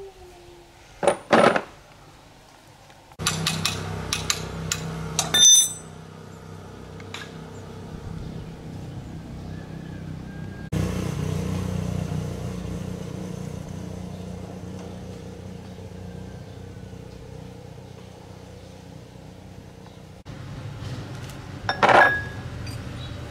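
Metal clinks from a car differential's steel parts being handled and knocked together: a couple of sharp clinks about a second in, a run of clinks between about three and six seconds in, and one more near the end. A steady low hum runs underneath from a few seconds in.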